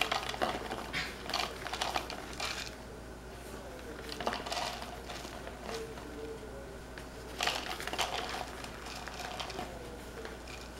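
Plastic bag of shredded cheddar crinkling as the cheese is shaken out into clear plastic cups. It comes in three bouts: for the first two and a half seconds or so, briefly about four seconds in, and again about seven and a half seconds in.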